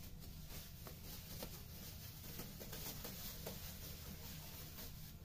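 Faint scattered soft ticks and taps of cubed raw beef being handled on a wooden cutting board, over a steady low hum.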